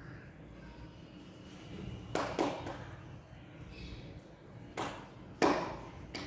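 A few sharp knocks with a short echo over a faint low background. A pair comes about two seconds in, then single knocks near five seconds and about five and a half seconds in, the last the loudest.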